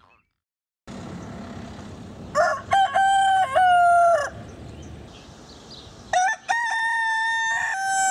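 A rooster crowing twice, each a full cock-a-doodle-doo that opens with short notes and ends in a long held note falling in pitch.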